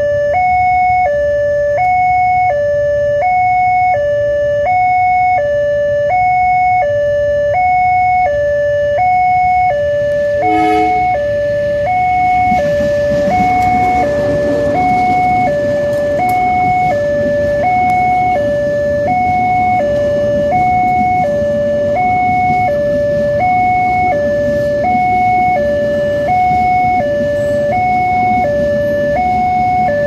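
Railroad crossing's electronic two-tone siren sounding from the pole-mounted loudspeaker, steadily alternating high and low tones about once a second. A brief blast comes about eleven seconds in, and from about halfway a passing passenger train adds a low rumble of wheels on the rails under the alarm.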